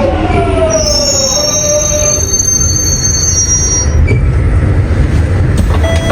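Jubilee line train slowing down: its traction motor whine falls in pitch and fades out about two seconds in. A high-pitched wheel and brake squeal sets in about a second in and stops after about three seconds, over a steady low rumble of the train running.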